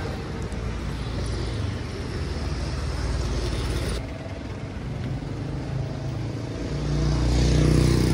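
Street traffic with a steady low rumble. A motor vehicle's engine draws near and passes close, loudest near the end.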